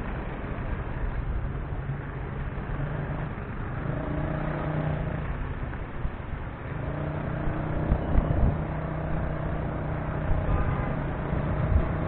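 Vehicle engine running and road rumble from a car moving through traffic. A steady low engine hum fades in and out.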